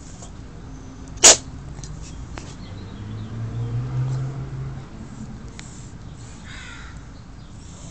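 Sounds from an old, sick pet: one sudden sharp burst about a second in, then a low, drawn-out sound that swells and fades in the middle.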